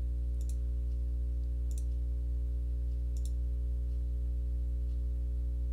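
Three faint computer mouse clicks, spaced about a second and a half apart, over a steady low hum.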